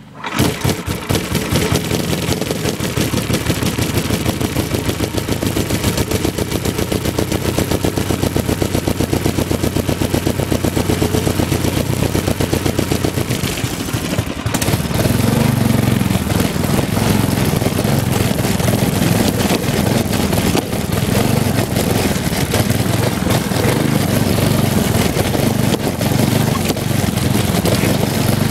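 Tecumseh HM100 10 hp single-cylinder four-stroke go-kart engine with a homemade pipe muffler, starting up right at the beginning and running with a rapid, even firing beat. About halfway through it gets louder, with more low rumble, as the throttle opens and the kart pulls away.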